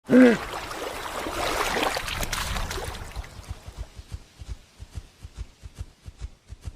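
Hippopotamus calling: a loud short honk at the start, then a stretch of splashing, watery noise, then a run of short low grunts about four a second.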